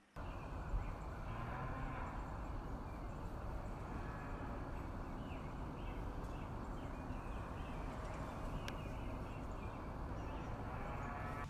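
Steady outdoor noise in open country, with birds chirping now and then.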